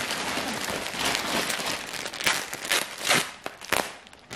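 Clear plastic packaging bag crinkling and rustling as it is handled and opened, with a few louder sharp crackles past the middle.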